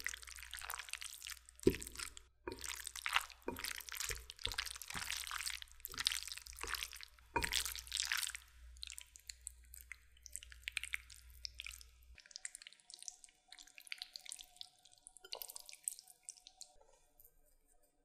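Chopsticks mixing thick udon noodles through a sticky peanut-butter chili sauce in a bowl: irregular wet, slapping mixing sounds. About two thirds of the way in they grow fainter and sparser, and they stop just before the end.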